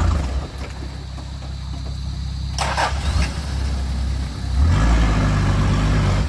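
Off-road 4x4's engine running low, then coming up louder again about three quarters of the way through. A short rushing noise a little before the middle.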